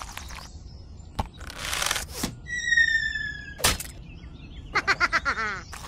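Added sound effects for a toy stick crossbow shooting arrows into a target. A whoosh is followed by a short, slightly falling whistle, then a sharp hit about two-thirds of the way in, the loudest sound. Near the end comes a fast, wavering rattle.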